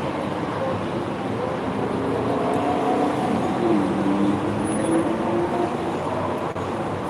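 Steady city traffic noise, an even rush of passing vehicles, with a wavering pitched sound rising and falling through the middle.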